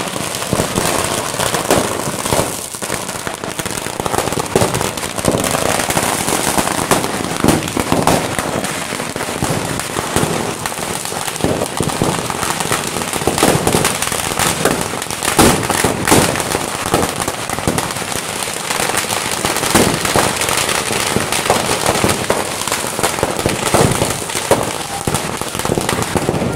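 Firecrackers packed inside a burning effigy going off in a rapid, continuous crackle, with louder bangs scattered through it.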